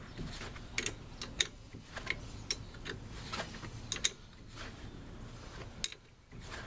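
Sharp, irregular metallic clicks of a wrench working a tight 14 mm brake caliper mounting bolt loose on a Mazda Protege's front caliper, about a dozen clicks with a short lull near the end.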